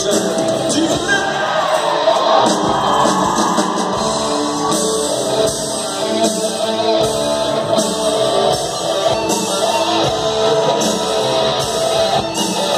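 Live rock band playing with drums, guitars and keyboard while a singer sings over them, heard through the PA in a large concert hall.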